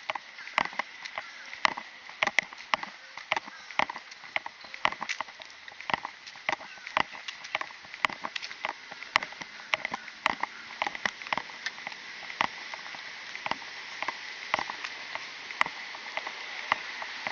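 Footsteps of a person walking on pavement, a steady pace of about two to three steps a second, over a faint steady high-pitched tone.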